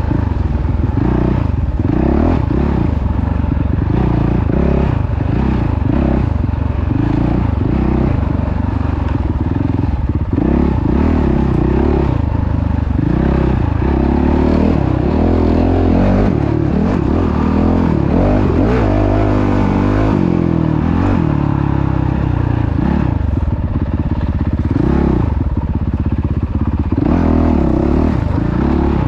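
Engine of an off-road vehicle running under way, its revs rising and falling again and again.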